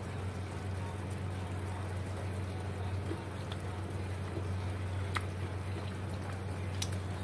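Bitter melon and tomato simmering in a little broth in a wok, a steady soft sizzle and bubbling over a constant low hum, with a faint click about five seconds in.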